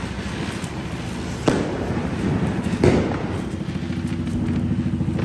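Ground fireworks hissing as they spray sparks across the ground, with two sharp cracks about a second and a half apart near the middle.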